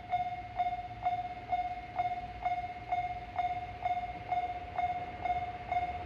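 Japanese railway level-crossing warning bell ringing: a single-pitched electronic ding repeated evenly a little over twice a second, signalling that a train is approaching. A faint low rumble lies underneath.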